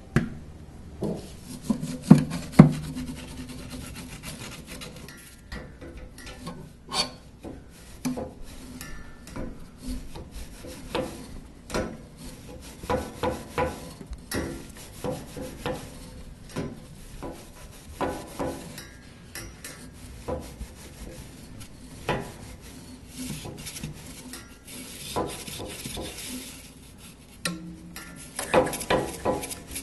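A condenser brush scrubbing and scraping at refrigerator condenser coils, with irregular knocks as it strikes the coils and the fridge's underside, the loudest about two seconds in. It is clearing out dust and pet hair, which may be why the fridge isn't cooling well.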